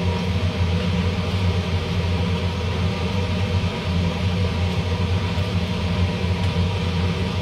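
Kitchen range hood fan running with a steady hum and hiss.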